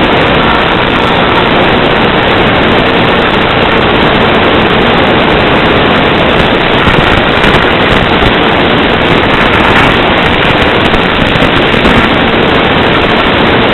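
Loud, steady crackling hiss from the audio channel of an analog FPV video downlink, with no clear tone or rhythm.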